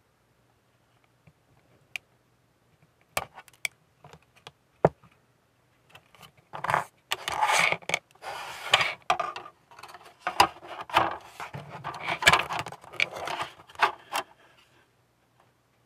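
Plastic model-kit parts and small hobby tools handled on a work surface: a few sharp clicks and taps, then from about six seconds in several seconds of irregular scraping and rubbing.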